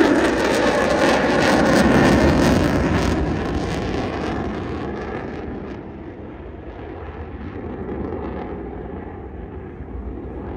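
Jet engine roar of an F-35 fighter flying past, loudest at the start and fading steadily as the jet draws away.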